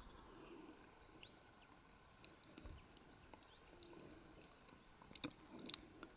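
Faint quiet background with a few thin bird chirps. About five seconds in comes a short cluster of sharp snaps and rustles as a red deer browses, pulling at the twigs of a shrub.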